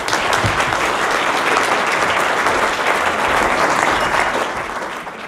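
Audience applauding: many people clapping together, steady and then starting to die away near the end.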